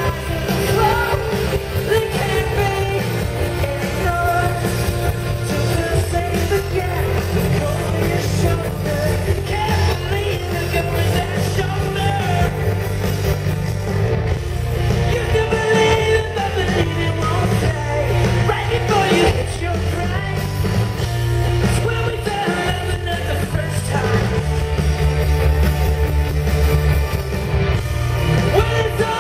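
Live rock band playing loud and steady: electric guitars, bass, drums and keyboards, with singing over them.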